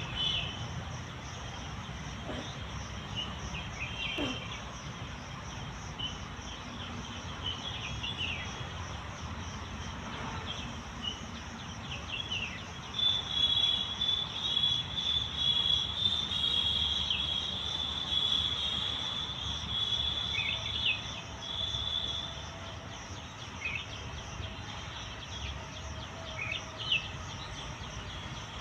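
Outdoor ambience of a steady, pulsing chorus of crickets or similar insects, with scattered short bird chirps. Near the middle, a louder high trill runs for several seconds.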